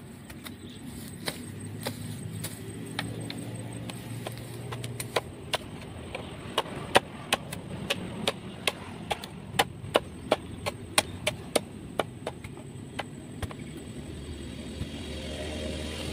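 A blade chopping wood: a few scattered strikes at first, then a run of sharp chops about two or three a second that stops shortly before the end. A low steady drone sits underneath and grows louder near the end.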